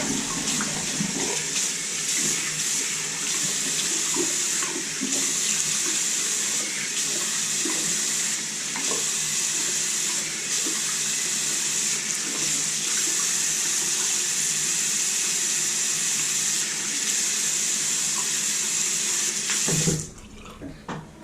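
Bathroom tap running steadily into a sink while something is rinsed off under the stream. The tap is shut off near the end.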